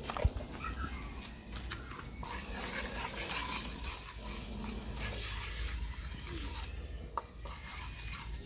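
Curry powder frying in hot oil in a cooking pot, sizzling in hissy surges while it is stirred, with a sharp knock about a quarter second in.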